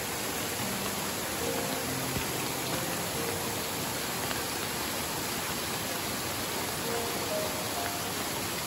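Steady splashing and rushing of several small waterfalls pouring down a rock face, an even wash of water noise with no breaks.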